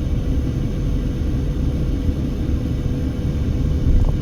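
Steady low road-and-engine rumble heard from inside a moving car, with a faint constant hum running through it.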